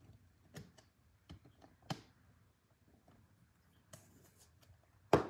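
Faint scattered clicks and taps of a trading card and a rigid plastic top loader being handled as the card is slid into the top loader, with a louder cluster of sharp clicks near the end.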